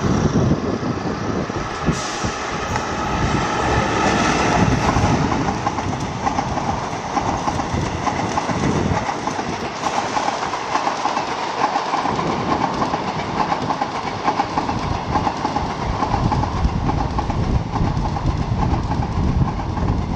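Indian Railways WAP-4 electric locomotive and its passenger coaches passing, the coach wheels clicking rhythmically over rail joints over a steady rolling rumble.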